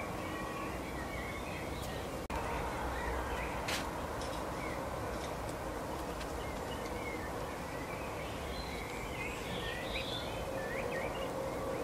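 Faint twittering of small songbirds, with more notes near the end, over a steady hiss and faint steady tones.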